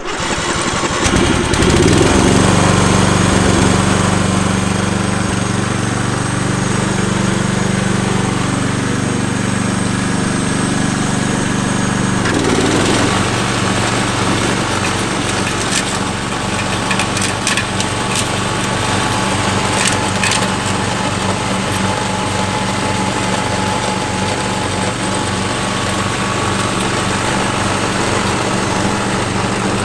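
Cyclone riding lawn mower's petrol engine starting up and running steadily. About twelve seconds in its note changes and settles into an even, rhythmic throb.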